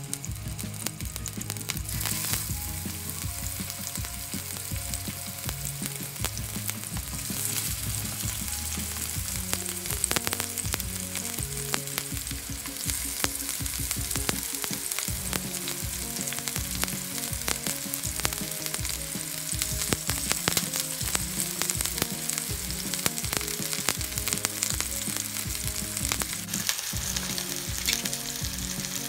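Meat-stuffed green peppers frying in a pan of hot oil: a steady sizzle with frequent small crackles and pops. Background music plays underneath.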